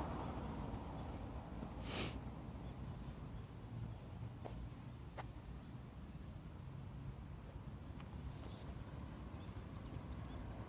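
Cicadas singing in a continuous high-pitched drone that grows louder near the end, with a single sharp click about two seconds in.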